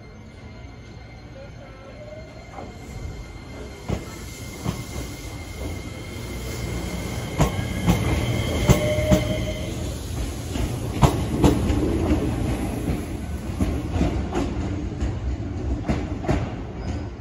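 Shizuoka Railway A3000-series electric train running on the rails: a steady low rumble that grows louder about six seconds in, with the wheels clicking sharply over rail joints every second or so.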